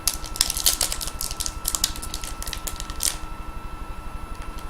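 Trading-card pack wrapper being worked and torn open by hand: a rapid run of crinkling, crackling clicks for about three seconds, then sparser, softer ones.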